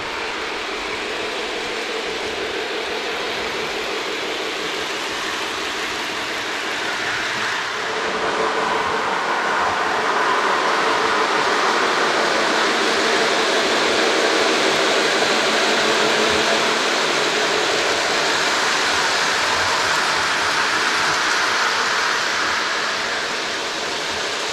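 Lionel electric toy train running on its metal track: a steady motor hum with the rumble of wheels on the rails. It grows louder about eight seconds in and eases off near the end.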